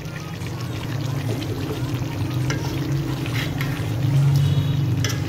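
Kofta curry gravy sizzling and bubbling in a pot as chunks of peeled potato are dropped in, with scattered crackles over a steady low hum.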